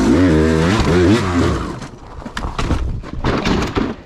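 Two-stroke dirt bike engine blipped up and down in pitch for about a second and a half. It is followed by a run of sharp knocks, cracks and scrapes.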